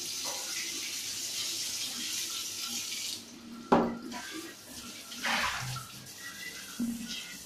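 Water running from a bathroom tap for about three seconds, then cut off suddenly. A sharp knock follows, then a short splash of water.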